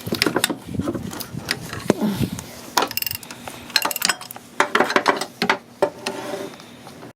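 Irregular metallic clicks and clinks of a 15 mm socket and wrench being worked on a timing-belt pulley bolt in an engine bay.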